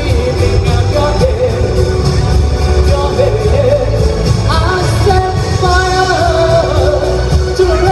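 A singer performing a pop song over loud backing music, with strong bass throughout.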